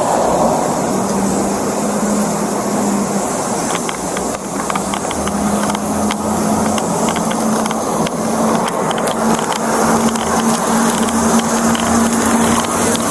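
Steady road traffic noise, with a low engine hum from a running vehicle throughout and a few light clicks near the middle.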